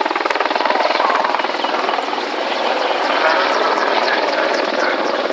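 Mil Mi-24 Hind attack helicopter flying overhead: its twin turboshaft engines and five-blade main rotor make a loud, steady, rapid beat of blade pulses.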